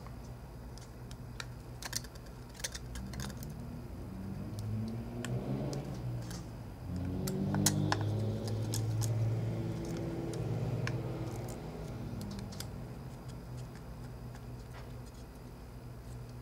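Scattered small, sharp clicks and taps of tiny phone screws and a precision screwdriver being handled and set down in a small screw tray.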